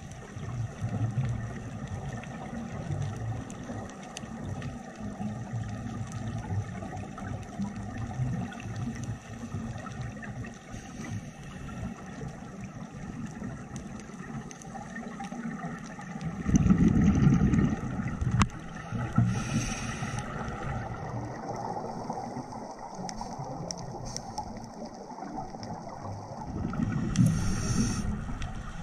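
Muffled underwater sound picked up by a camera in a dive housing: a steady rumbling wash, with two louder bursts of a scuba diver's exhaled regulator bubbles, one about two-thirds of the way through and one near the end.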